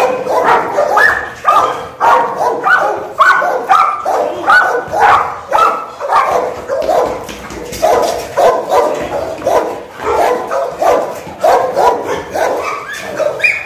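Pit bulls barking rapidly and without pause, about two or three barks a second.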